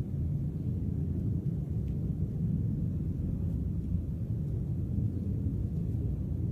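A steady, deep rumbling drone with no breaks or distinct events, of unexplained origin, presented as a 'strange sound'.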